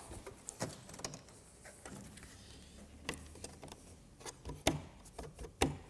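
Scattered light clicks and knocks as a Land Rover Discovery's headlamp unit is worked loose from its metal retaining clips, with a few sharper knocks near the end.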